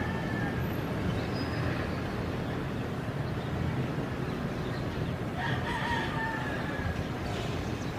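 Steady distant rumble of an Airbus A320-200's jet engines as the airliner flares and touches down on the runway. A single crowing call cuts through about five and a half seconds in.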